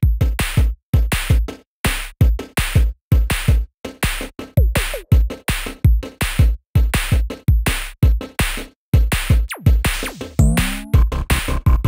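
Electronic background music with a chopped drum-machine beat: hard, evenly paced hits cut off by short silences, with a few synth pitch sweeps late on.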